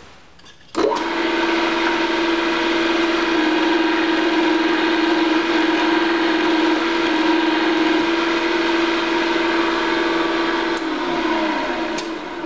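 Old Craftsman drill press motor switched on with a sudden start and running at a steady hum. Near the end it is switched off and winds down, its pitch falling.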